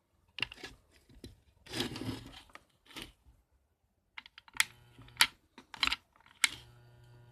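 A series of sharp clicks and knocks, like objects being handled, with four loud clicks spaced about half a second apart. Near the end a steady low hum starts and keeps going.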